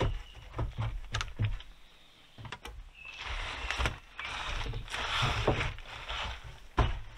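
Wooden roof poles knocking against each other, with a stretch of scraping in the middle as a pole is slid and rubbed along the others, and another sharp knock near the end.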